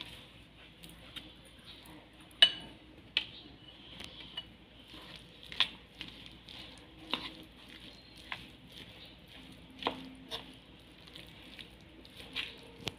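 A spoon stirring sweet corn kernels and flour in a bowl: a soft gritty scraping with irregular sharp clinks of the spoon against the bowl, the loudest about two and a half seconds in.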